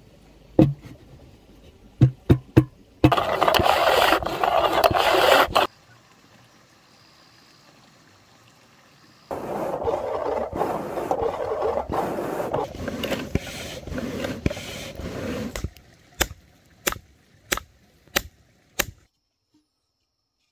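Hand-tool work: a few sharp knocks, then two long stretches of rasping scrapes with a quiet gap between, then a run of about six knocks.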